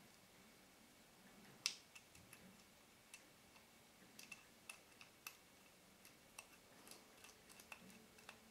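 Faint, scattered light clicks of a precision flathead screwdriver working a small screw out of the metal focus ring of a Nikkor-P Auto 105mm f/2.5 lens, the loudest click a little under two seconds in.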